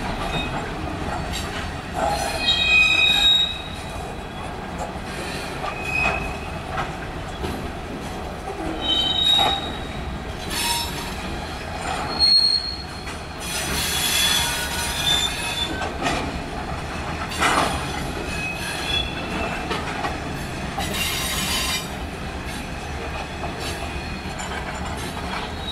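Freight train cars rolling past, covered hoppers then tank cars, with a steady rumble of steel wheels on rail. Short high-pitched wheel squeals come again and again, and there are occasional knocks.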